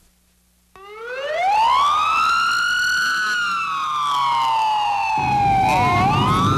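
Emergency vehicle siren wailing: it starts suddenly about a second in, rises steeply, then slowly falls before sweeping up again near the end. A low rumble of engine or traffic noise joins about five seconds in.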